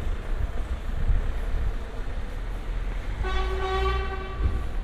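Street traffic rumbling, with a vehicle horn sounding once as a single held tone for about a second near the end.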